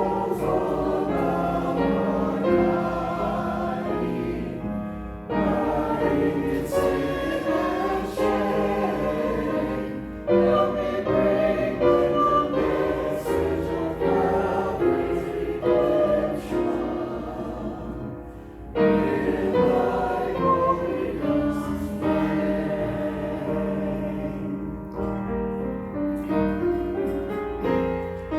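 Church choir singing a sacred piece in long phrases, with brief pauses between phrases.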